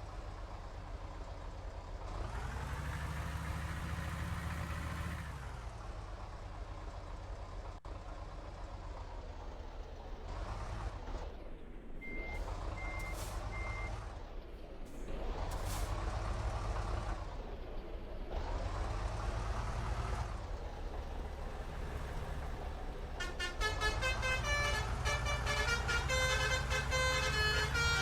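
Road vehicles passing one after another, their engine and tyre noise swelling and fading, with three short beeps near the middle. In the last few seconds a bus's basuri telolet horn plays a rapid, warbling multi-note melody.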